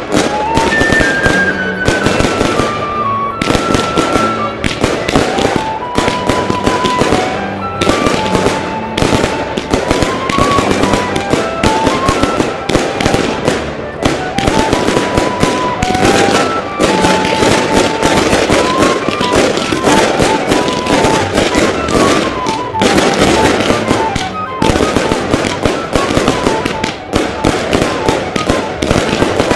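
Dense New Year's Eve fireworks: rockets and shells banging and crackling continuously, many reports a second. A melody plays along under the bangs.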